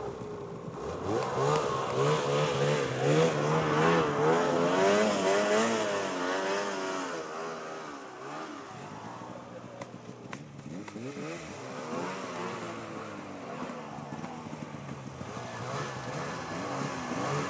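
Polaris snowmobile engine revving in deep snow, its pitch wavering up and down as the throttle is worked. It is strongest through the first several seconds, eases off, then revs up again past the middle.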